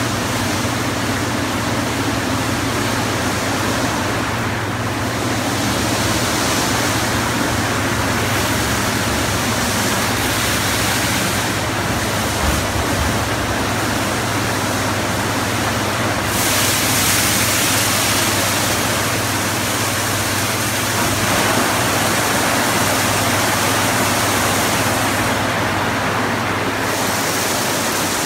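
Automatic rollover car wash running: a steady rush of water spray and the rotating brushes working over the car, over a steady low hum from the gantry's motors. The hiss gets brighter about two-thirds of the way through.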